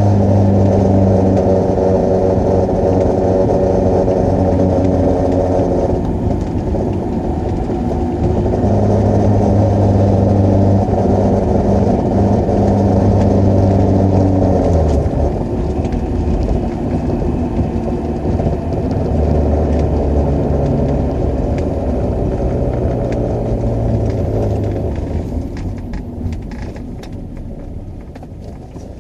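A 1999 G20 full-size van running with a loud, steady low droning vibration whose pitch shifts several times. This is the vibrating noise the video sets out to show. The sound fades over the last few seconds.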